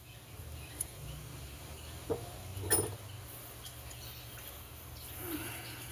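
Light clicks and taps of small metal parts being handled as the adjustment needles are taken out of a Tillotson carburetor: a few sharp ticks, the loudest nearly three seconds in, over a low steady hum.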